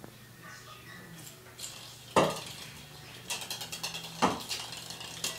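A puppy's claws clicking and scrabbling rapidly on a parquet floor as it runs after a light plastic ball, with two sharp knocks, about two seconds in and again two seconds later.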